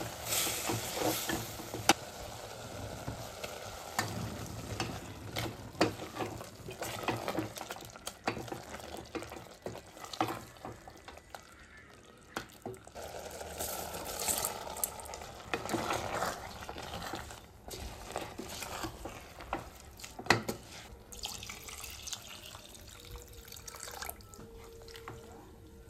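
Wooden spatula stirring and scraping through frying mutton and onions in an aluminium pressure cooker, with irregular knocks against the pot over a sizzle that comes and goes. Near the end water is poured into the pot.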